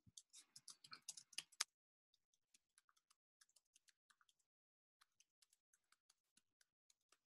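Faint computer keyboard typing: a quick run of keystrokes in the first second and a half or so, then scattered single key clicks, a few a second.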